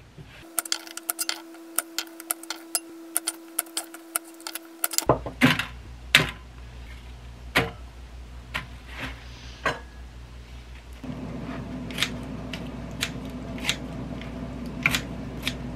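A kitchen knife chopping an onion on a cutting board in quick taps, several a second. Then scattered knocks and clinks over a steady low hum, and near the end kitchen scissors snipping kimchi in a bowl, about once a second.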